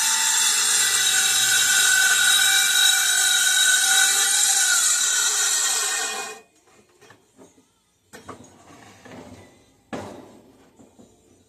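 Electric power tool whining at high speed as it works steel, its pitch sagging a little before it shuts off abruptly about six seconds in. A few light knocks follow, with one sharper knock near ten seconds.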